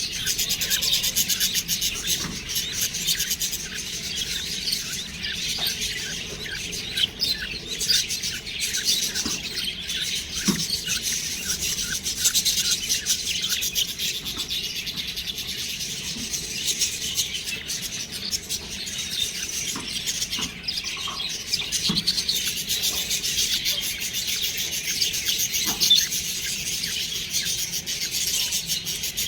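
Budgerigars chirping and chattering, a dense continuous twitter with scratchy, rasping notes and an occasional louder chirp.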